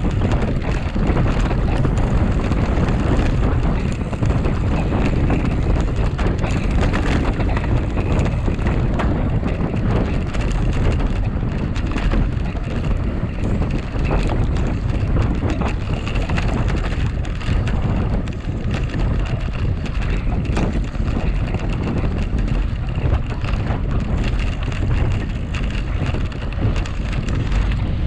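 Wind buffeting the microphone of a mountain bike ridden at speed, mixed with tyre noise and the bike's frequent rattles and knocks over rough ground.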